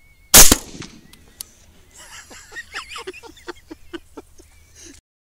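A single loud 6.5 Grendel rifle shot with a short ringing tail, followed about a second later by a faint sharp click. Then a quick run of short, pitched cries, about three or four a second, rising and falling in pitch.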